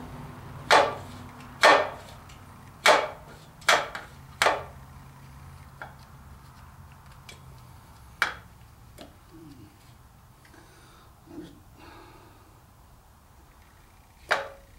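Sharp metallic knocks and clicks of a clutch throw-out bearing being worked onto the transmission's input-shaft bearing retainer and clutch fork. Five come in quick succession, then one more about eight seconds in and another near the end.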